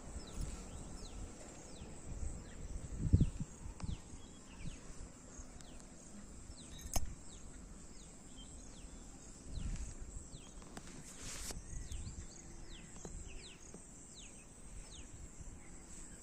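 Rural outdoor ambience: birds chirping in many short, quick, downward-sliding high notes, scattered throughout over a steady high hiss. A few low bumps on the microphone and one sharp click about seven seconds in.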